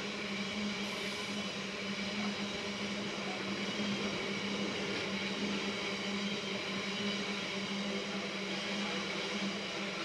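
Drax biomass hopper wagons of a freight train rolling past on the rails: a steady rush of wheel and rail noise with a steady hum running under it.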